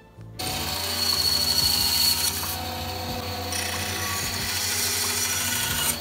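Benchtop band saw running and cutting the plastic mounting tabs off a blue PVC electrical junction box, starting about half a second in.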